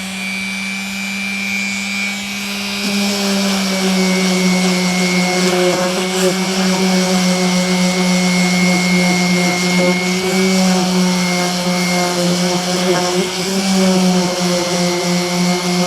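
Electric hand sander with 150-grit paper running steadily against a 3D-printed plastic base, its motor hum under the rubbing of the sandpaper; the sound grows a little louder about three seconds in.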